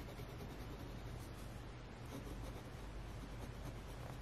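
Faint scratching of a fine-nibbed Kaweco AL Sport fountain pen writing on a planner page.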